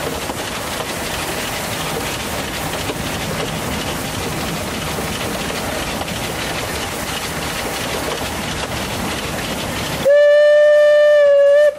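Train ride behind an ÖBB class 298 narrow-gauge steam locomotive: the steady running noise of the carriage on the rails, then about ten seconds in the locomotive's steam whistle sounds one loud, steady blast of under two seconds.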